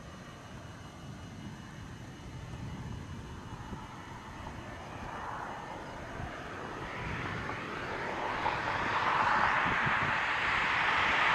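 A vehicle approaching along the highway, its road noise swelling steadily as it nears.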